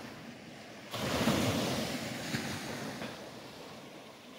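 A small wave breaking on a sand and shingle shore on a calm sea, rising suddenly about a second in, then its wash slowly fading.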